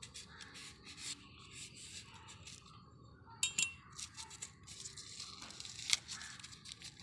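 A knife blade cutting and scraping around the dry, papery top of an onion: a string of small quiet scrapes and clicks, with one sharper click near the end.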